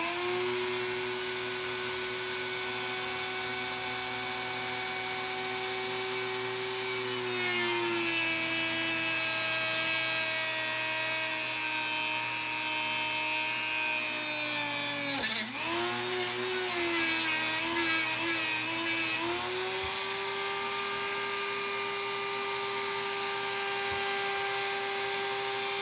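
Dremel rotary tool starting up and running with a steady whine. From about a quarter of the way in its pitch drops under load and a gritty hiss joins it as it cuts a piece off a strip of metal. Just past the middle it bogs briefly and wavers, then returns to its free-running whine.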